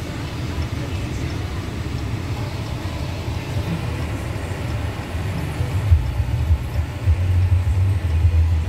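Low rumble of a car heard from inside the cabin of a 2022 Dodge Challenger, growing stronger about six seconds in.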